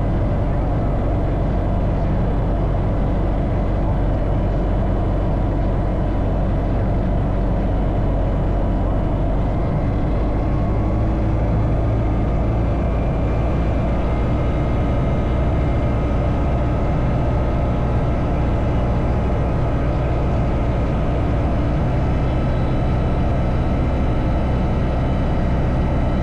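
Bristell Classic light aircraft's propeller engine running steadily on approach, its note stepping up slightly about ten seconds in.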